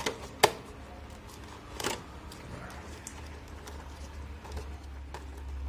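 Hands handling the toy figure's plastic packaging: a sharp click at the start, a louder click about half a second in, and a short rustle about two seconds in, over a steady low hum.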